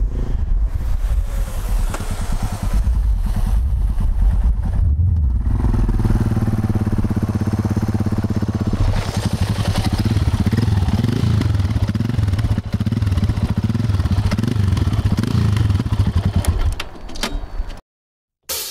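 Yamaha XT660X's single-cylinder 660 cc engine running through Leovince X3 aftermarket exhausts, holding a steady note for a few seconds, then revs rising and falling, before the sound stops abruptly shortly before the end.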